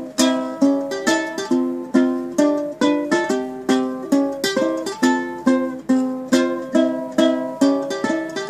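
Handbuilt steampunk ukulele being strummed in a steady rhythm, about two chord strums a second, with the chords changing as it goes.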